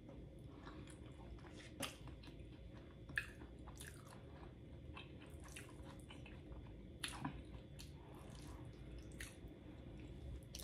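Faint chewing of a mouthful of burrito bowl, with scattered soft mouth clicks.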